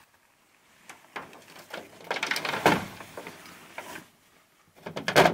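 Nylon backpack and gear bags rustling and scraping as they are handled, in several irregular bursts, loudest about two to three seconds in and again near the end.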